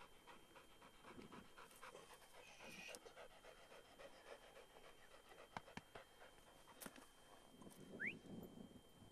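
A pointer dog panting faintly and steadily, mouth open, as it rests after a retrieve.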